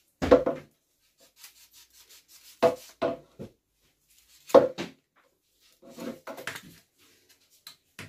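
Knife blade shaving and scraping the end of a broom handle in four short bursts of strokes, with pauses between them.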